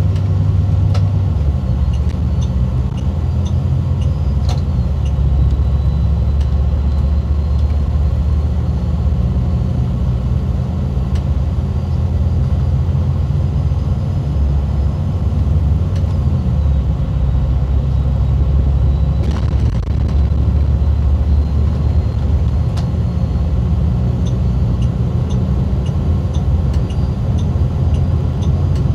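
Diesel engine and road noise of an MCI D4505 intercity coach, heard from inside the cabin while cruising on the highway: a steady low drone with light clicks and rattles, and one brief louder rustle or rattle a little past the middle.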